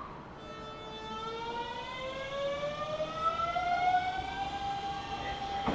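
Hanshin 5500 series electric train's VVVF inverter and traction motors whining as the train pulls away, a stack of tones rising steadily in pitch for about four seconds and then holding steady. A sharp knock comes right at the end.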